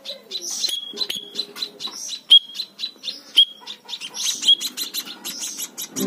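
Young hand-raised munia (emprit) chirping with repeated short high notes among a run of quick sharp ticks, as it flies to the hand and is fed from a syringe.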